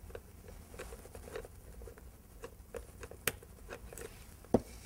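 Screwdriver backing out the small screw from the Click2knot knot-tying tool's plastic housing: faint scratchy ticks and clicks, with a sharper click about three seconds in and another near the end.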